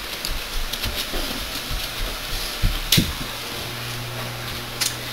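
Steady hiss of a home camcorder's sound track with a few short knocks from the boy moving on the bunk bed and from the camera being handled. A low steady hum comes in about three and a half seconds in.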